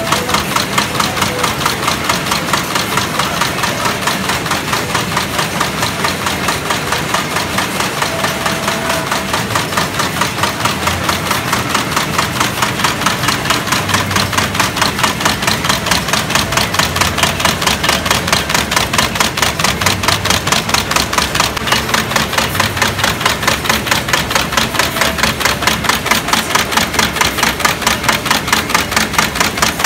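Wire-fed automatic screw-making machine (a cold heading machine) running, its flywheel-driven ram striking the wire in a steady, rapid clatter of several even strokes a second.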